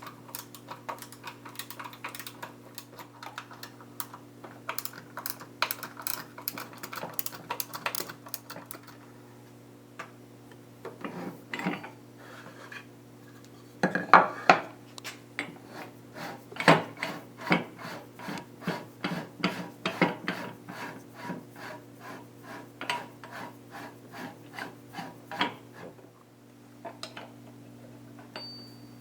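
Low-profile ratchet wrench being worked back and forth on a fastener, giving a long run of short metallic clicks that become stronger and more regular, about two a second, in the second half.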